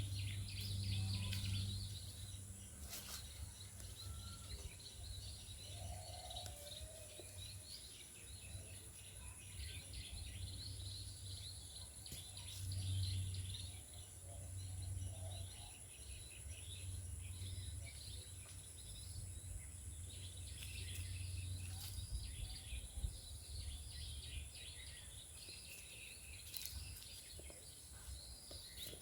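Rural outdoor ambience: many small birds chirping and twittering throughout, over a low droning hum that swells and fades and a thin steady high-pitched whine.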